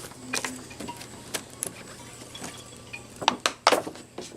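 Packaging being handled during an unboxing: scattered rustles and short clicks, with a cluster of sharp clicks about three and a half seconds in.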